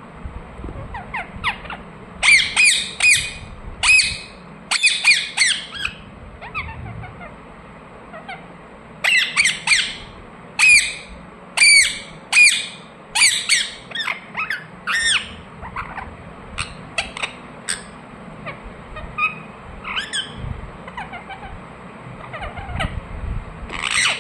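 Ringneck parakeet calling: short, sharp, high-pitched calls in quick runs. Two dense runs of several seconds each are followed by sparser single calls.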